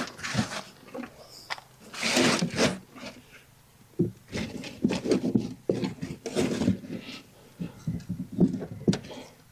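Gloved hands scraping and rustling through potting compost and potatoes in a wheelbarrow, in irregular bursts, the longest about two seconds in.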